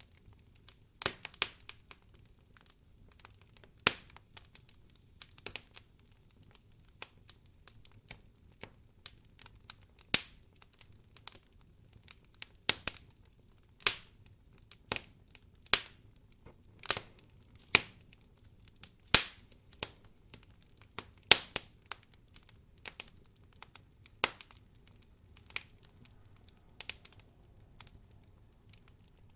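Campfire of burning firewood crackling, with sharp, irregular pops and snaps coming one to three a second.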